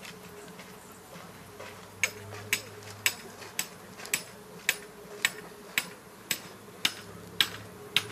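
A steady low hum, and from about two seconds in a regular series of sharp clicks, about two a second.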